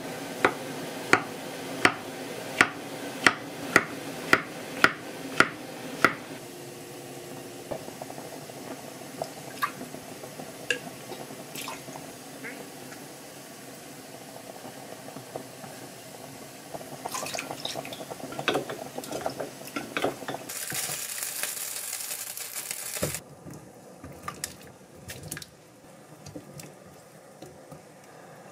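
Kitchen prep sounds. For the first six seconds a knife slices button mushrooms on a wooden cutting board, knocking the board about every 0.7 seconds. Then come soft clinks of a spoon stirring sauce in a glass mug, a clatter of dishes, and a couple of seconds of running water, and the water cuts off into quieter clinks of utensils against pots and bowls.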